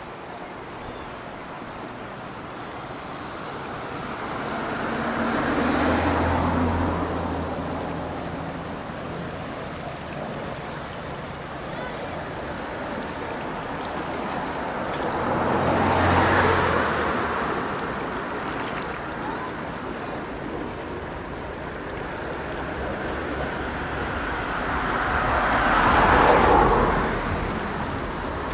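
Three road vehicles pass by in turn, about ten seconds apart. Each one's engine and tyre noise swells and fades, and the last pass is the loudest.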